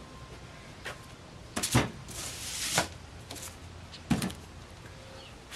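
Tools and wood being handled on a workbench: a pair of sharp clunks about one and a half seconds in, a short scraping slide, and another knock about four seconds in.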